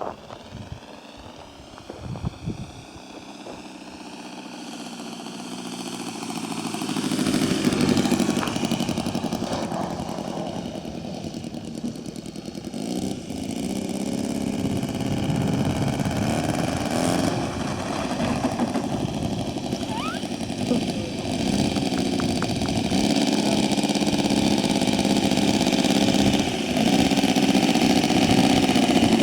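ASP 160 twin-cylinder model aircraft engine running on a Seagull Decathlon 120. It grows louder over the first eight seconds, then holds a fairly steady drone with small rises and falls. Low thumps on the microphone come in the first few seconds.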